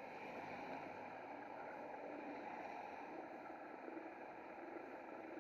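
Steady rushing wind and rolling noise on the microphone of a camera riding on a moving bicycle.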